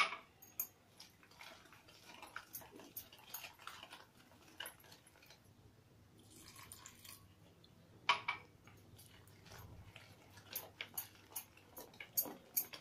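A wire whisk working thick biscuit-cake batter in a plastic bowl: faint, irregular clicks and scrapes. Milk is poured in around the middle, there are a couple of sharper knocks, and near the end the whisking turns into quick strokes, several a second.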